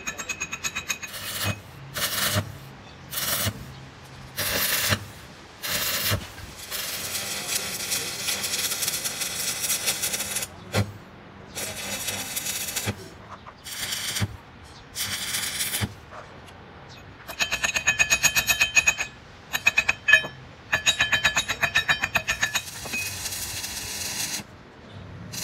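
Stick welder's arc crackling and hissing as weld is built up on a broken differential pinion gear shaft: first a string of short bursts of about a second each, then longer runs of several seconds, stopping and starting again throughout.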